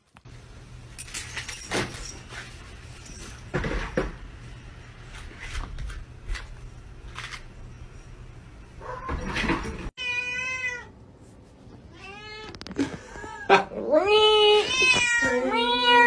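A cat meowing loudly again and again, long drawn-out calls that bend in pitch, starting after about ten seconds. Before that there is only faint background noise with a few knocks.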